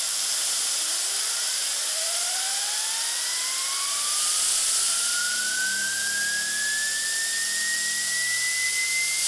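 Compressed air from a small compressor blasting through a metal 3D-printed turbine. There is a loud hiss, with a whine that rises steadily in pitch as the turbine spins up and levels off near the end, then cuts off suddenly.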